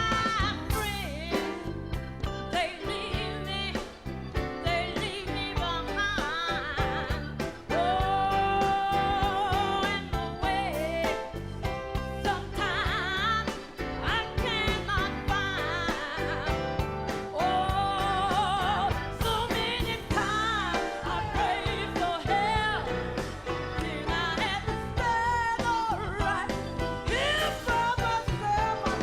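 Gospel song with a woman soloist singing a bending, ornamented melody over a band with a steady beat and bass, held notes around eight and eighteen seconds in.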